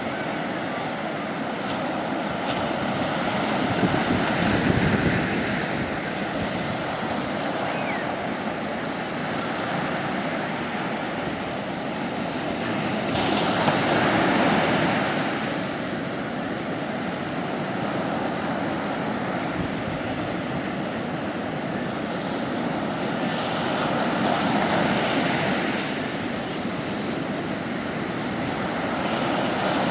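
Sea waves breaking on the shore: a steady wash of surf that swells and falls back roughly every ten seconds as each wave comes in.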